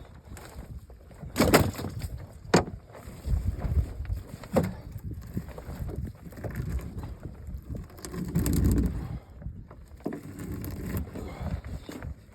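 Irregular knocks and thumps in a fishing boat, with a few sharp knocks in the first five seconds over a low uneven rumble that swells for about a second near the end.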